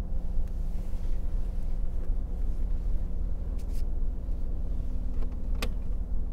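Car engine idling steadily with a low hum, and a single sharp click near the end.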